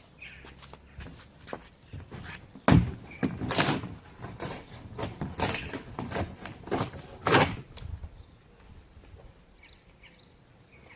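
A large cardboard bike box being handled and opened: scattered knocks and thuds with scraping and rustling. The loudest knocks come about three seconds in and again about seven seconds in, and it grows quieter near the end.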